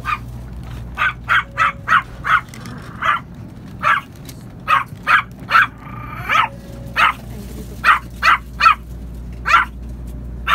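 A small dog yapping over and over in short, sharp barks, about two a second, over the steady low rumble of a moving train.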